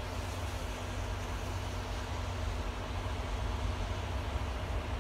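Wind buffeting the microphone, an uneven low rumble, over a steady low hum from the rail yard.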